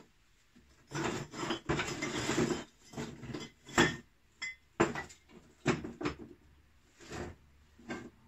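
Metal tools and small parts clattering and scraping on a wooden workbench as they are rummaged through by hand: a stretch of scraping and rattling about a second in, then about six separate sharp clinks and knocks.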